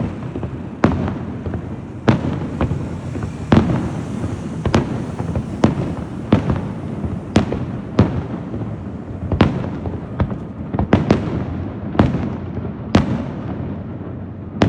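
Fireworks display: sharp bangs of shells bursting about once a second, over a continuous rumble and crackle of further explosions.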